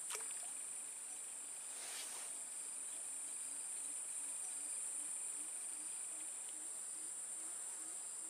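Steady high-pitched insect chorus, with a small splash as the baited hook lands on the water right at the start and a faint knock about two seconds in.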